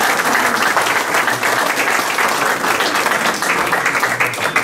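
Audience of a few dozen people applauding steadily.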